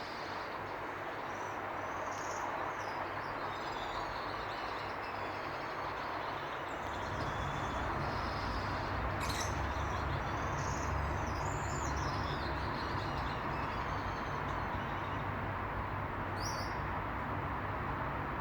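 Small birds chirping, with many short calls gliding up and down in pitch, over a steady hiss. A low rumble sets in about seven seconds in, and there is one sharp click a little past the middle.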